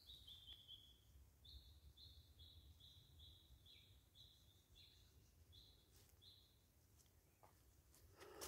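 Faint bird call: a string of short, high notes at one steady pitch, about two a second, stopping about six and a half seconds in.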